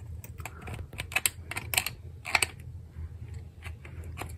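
Flat-blade screwdriver clicking and scraping against the thin metal tabs on the rim of a Marshal 889 headlight as the tabs are pried and bent over: an irregular run of small, sharp metallic clicks.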